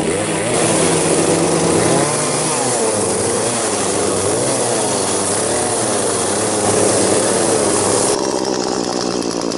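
Two-stroke chainsaw running and revving up and down as it cuts through poles, with a steadier lower engine hum under it that drops away about two seconds in.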